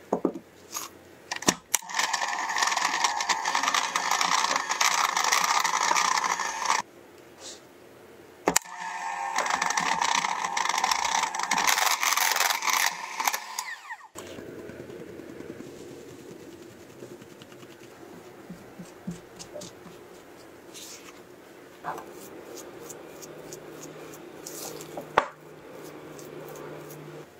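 Electric hand mixer with wire beaters creaming butter and icing sugar in a glass bowl, running in two spells of about five seconds with a short stop between. After it switches off, a silicone spatula scrapes and presses cocoa dough against the glass bowl, with a few light clicks and one sharp knock near the end.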